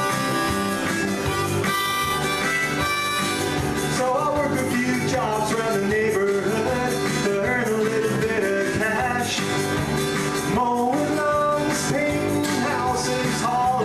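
Harmonica played in a neck rack over a strummed acoustic guitar. Held chords come first, then wavering, bent notes from about four seconds in.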